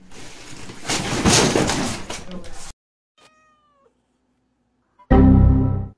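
A short, faint cat meow that falls in pitch at its end, about three seconds in. Before it comes a loud burst of noise that cuts off suddenly, and near the end a loud, steady sound with several pitches held together.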